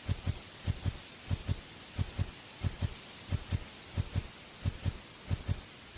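Low double thumps repeating evenly like a heartbeat, one lub-dub pair about every two-thirds of a second.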